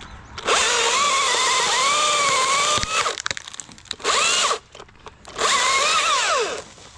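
Chainsaw cutting in three bursts: a long cut, then a short one, then another, with the engine pitch wavering under load and falling away as the throttle is let off near the end.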